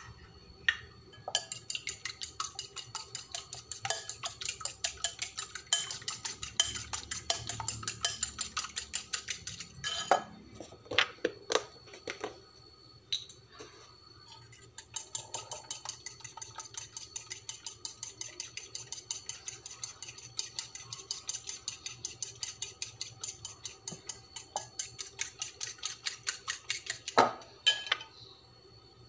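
Fork beating eggs in a bowl, its tines clicking against the bowl in a fast, even rhythm. About ten seconds in, the beating stops for a few seconds, broken by a few sharper knocks, then starts again. A louder knock comes near the end.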